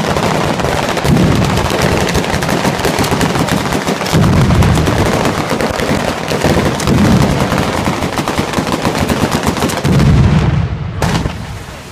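A ground-level firework battery (batteria alla Bolognese) firing a dense, rapid string of firecracker bangs, with heavier booms about every three seconds. It dies away near the end.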